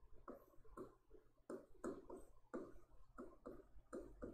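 Pen writing by hand on a board: a quick run of faint, irregular taps and short scrapes, about three to four strokes a second.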